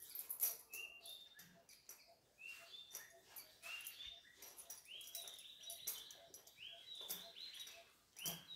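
Faint, repeated short high-pitched chirping calls, about a dozen, each rising quickly and then holding, with soft rubbing of hands on a dog's fur.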